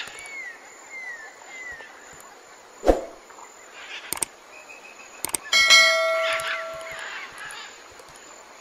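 Subscribe-button animation sound effects: a thump, a couple of mouse clicks, then a notification bell that rings out and fades over about a second and a half. Faint short chirps sound near the start.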